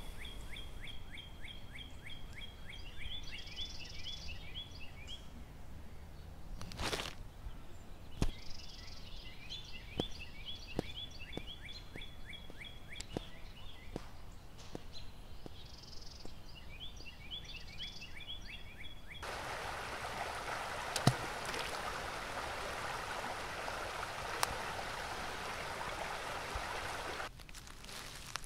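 Outdoor ambience: a bird sings repeated phrases of quick downslurred high notes over a steady high note, with scattered sharp clicks and a knock about seven seconds in. About two-thirds of the way through, a steady rushing noise cuts in and stops abruptly shortly before the end.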